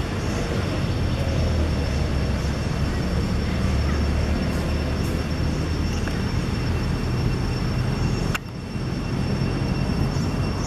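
Steady outdoor background noise with a low rumble and two faint, steady high-pitched tones. It dips briefly with a click about eight seconds in.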